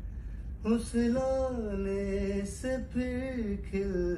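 A man singing slow, long held notes that glide gently up and down, in phrases broken by short breaths.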